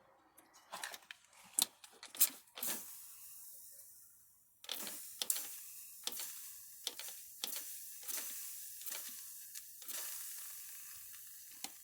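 A few light clicks, then a torch-heated diesel fuel injector sizzling and crackling as it is cooled down, the hiss starting suddenly about halfway through and slowly fading.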